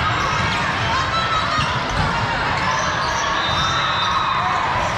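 Volleyball hall ambience with several courts in play: volleyballs being struck and bouncing on the hard sport-court floor, under a constant murmur of players' and spectators' voices in a large hall. One louder ball thump about two seconds in.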